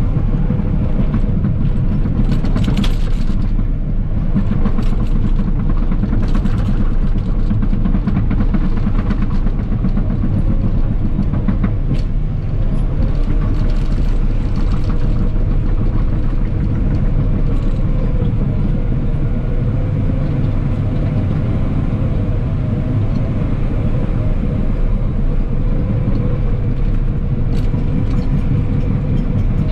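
Cat 963K track loader's diesel engine running steadily under work, with a few sharp metallic clanks from the machine scattered through it.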